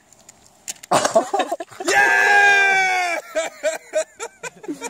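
A man's loud, drawn-out yell of 'Jeee!', held for about a second and dropping in pitch as it ends, with short bursts of laughter after it.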